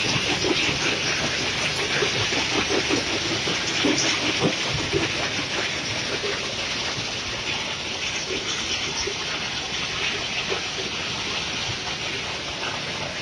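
Stone-crushing plant machinery running: a steady, dense mechanical din from the belt conveyor carrying broken rock and the plant around it, with irregular clatter of stones, a little fainter in the last few seconds.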